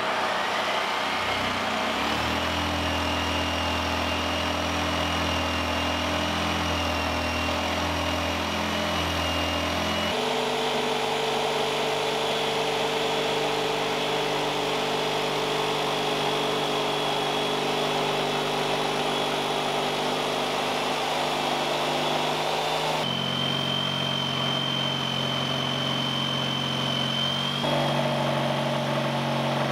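Corded jigsaw running steadily as it cuts a round hole through a wooden countertop, a high motor whine over a low buzz. The tone jumps abruptly to a new pitch several times.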